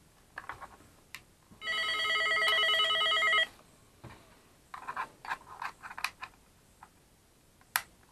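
Retevis PMR walkie-talkie sounding an electronic warbling tone through its small speaker for about two seconds. A few light plastic clicks and taps follow as the radio is handled.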